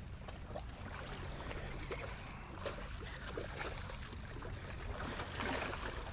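Steady low motor hum over a hiss of wind and water, with a few faint taps.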